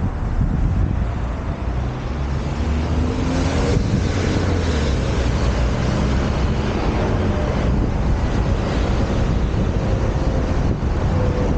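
Wind rushing over the camera's microphone on a moving electric unicycle, with a steady low rumble of road noise. A faint tone wavers in pitch in the background.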